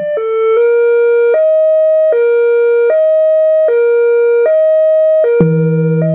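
Whelen Carbide electronic siren sounding a European two-tone hi-lo, switching between a lower and a higher pitch about every three-quarters of a second. About five seconds in there is a click, and the Howler low-frequency siren speaker joins with a deep low tone under the two-tone.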